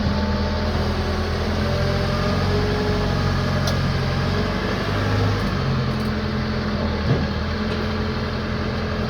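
Branson F Series compact tractor's diesel engine running steadily at a raised idle, with a single knock about seven seconds in.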